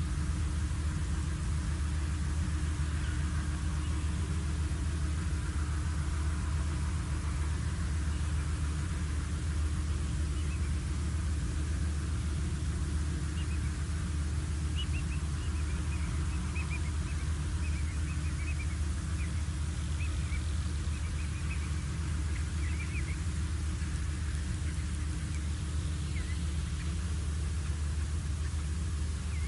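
Steady low rumble on the outdoor wildlife-camera microphone. Short high bird chirps come in quick runs from about ten seconds in to the mid-twenties.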